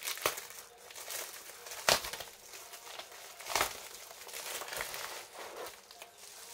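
Parcel packaging being unwrapped by hand: an irregular crinkling and rustling, with three sharp clicks.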